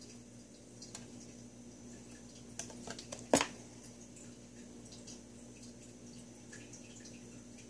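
Scissors and a small piece of wire mesh being handled: a cluster of small clicks about two and a half seconds in, ending in one sharp click, then a few faint ticks as the scissors cut the mesh.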